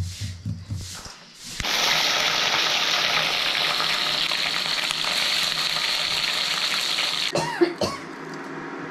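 Rushing river water: a loud, steady hiss that starts abruptly about a second and a half in and cuts off suddenly about seven seconds in. It is preceded by a few short breathy coughs.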